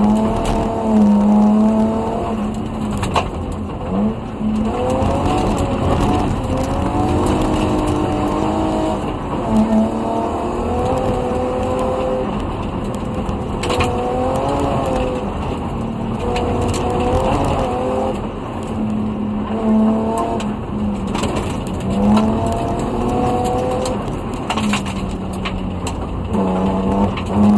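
BMW E30 rally car's swapped-in M50 2.5-litre straight-six, heard from inside the cabin, revving hard through the gears on a gravel stage. Its note climbs again and again and breaks off at each gear change, over the steady rumble of tyres on gravel, with the odd sharp knock.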